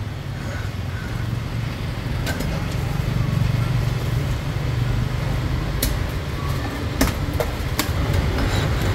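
A motor vehicle's engine running close by and growing louder, with a few sharp knocks over it.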